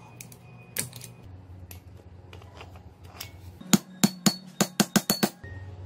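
A quick run of about nine sharp metallic knocks in the second half, coming faster toward the end, as an angle grinder's aluminium body is knocked against a metal block. A single lighter click comes about a second in.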